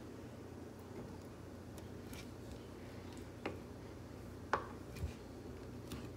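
Kitchen knife cutting potato wedges on a cutting board: a few short, sharp taps of the blade on the board, the loudest just past the middle, over a faint low hum.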